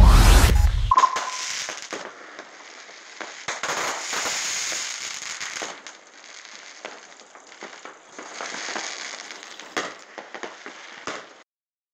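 New Year's fireworks going off: a dense run of crackling and popping with a few sharper pops, the sound cutting off near the end. In the first second, electronic music with heavy bass fades out.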